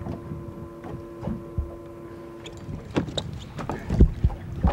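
Knocks and thumps on a small fishing boat, several in the second half with the loudest about four seconds in, over a low rumble. A faint steady hum stops a little past halfway.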